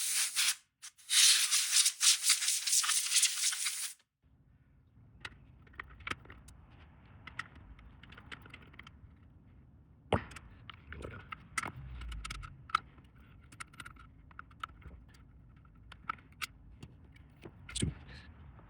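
Canned compressed air hissing in blasts over a circuit board for about four seconds, with a short break just under a second in. The hiss then stops abruptly and is followed by faint scattered clicks and taps of small parts and tools being handled.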